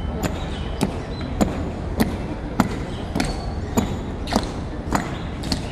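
Honor guards' boots striking a hard floor in slow, even marching cadence: sharp heel strikes a little under two a second.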